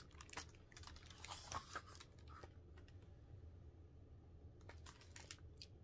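Faint handling of a hardcover picture book as its cover is opened and pages are turned: soft rustling and light clicks for the first couple of seconds, then a few more clicks near the end.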